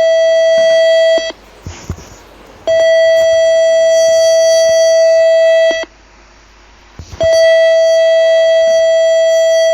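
Emergency Alert System (EAS) alarm tone: one loud, steady, buzzy tone in long blasts of about three seconds each, broken by pauses of about a second and a half.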